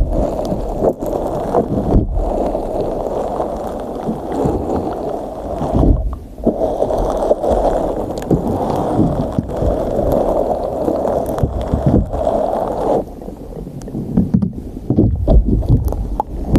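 Pearly pink slime squished and poked with a stick, making continuous wet squishing and crackling with many small pops. It goes quieter about thirteen seconds in, then sharper pops come near the end.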